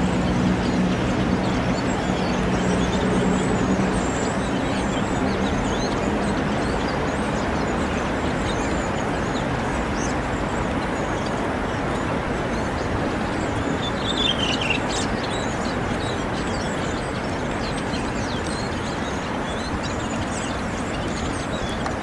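Steady outdoor background rumble, with a low hum that fades out after about six seconds, and faint high bird chirps throughout; a clearer falling bird call about fourteen seconds in.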